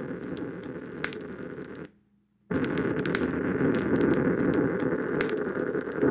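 Crackling noise and hiss from a low-quality night-time laptop recording, with scattered sharp clicks. About two seconds in it cuts out to near silence for half a second, then returns a little louder.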